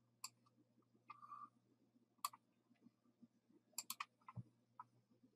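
Faint computer mouse clicks, about eight in all, several in quick succession about four seconds in.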